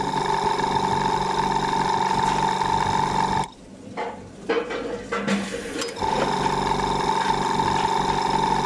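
Handheld electric spray gun spraying a green coating onto dessert domes, a loud steady pitched buzz. It runs for about three and a half seconds, stops for about two and a half seconds, then starts again.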